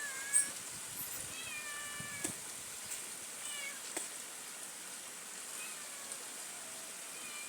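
A cat meowing: several short mewing calls, each falling in pitch, mostly in the first half, with a few faint sharp clicks in between.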